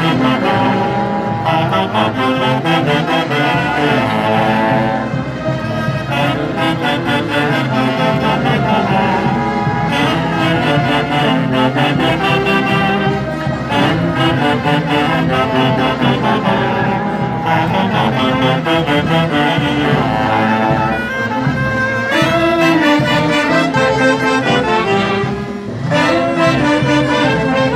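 Festival band music: a lively melody carried by wind instruments over a steady beat, with brief breaks between phrases.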